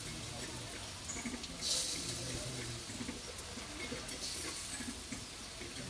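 Batter-coated okra pieces sizzling briefly as they are laid one at a time into hot oil in an iron karahi: a short hiss about two seconds in and another a little past four seconds.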